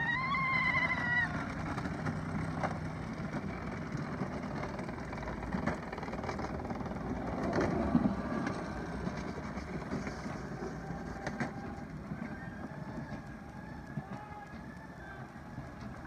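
Luge carts rolling down a concrete luge track, a steady rumble of wheels that swells as one cart passes close about halfway through.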